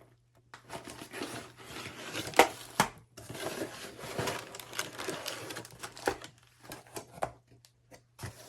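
A box being opened and its packaging handled: irregular rustling and crinkling, with sharp clicks and knocks, the loudest about two and a half seconds in.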